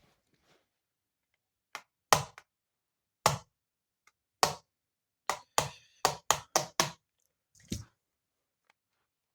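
Keys on a Yealink phone's keypad being pressed one at a time: about eleven sharp plastic clicks, spaced out at first, then a quick run of six in a row, and one more near the end.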